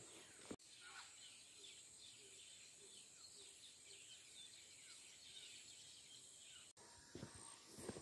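Faint rural ambience: a steady high insect trill with scattered faint bird chirps. Footsteps crunch on a gravel road in the first half second and again in the last second.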